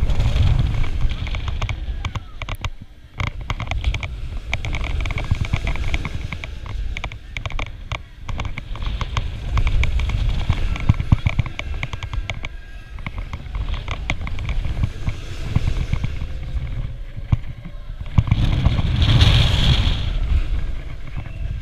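Zamperla Mega Disk'O ride in motion as the spinning disc swings back and forth along its half-pipe track: wind buffeting the on-board microphone with a low rumble, overlaid with rapid clicking and clattering from the ride. The noise grows louder near the end.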